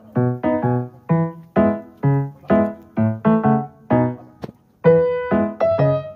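Background music: a piano playing a steady, even pattern of notes and chords, with a short break and a click about four and a half seconds in before it picks up again.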